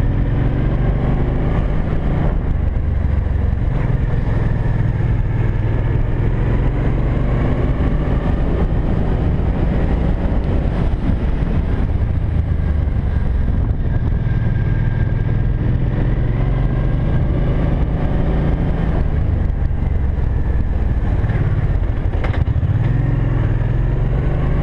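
Cruiser motorcycle engine running while riding, a heavy low rumble with its pitch rising and falling.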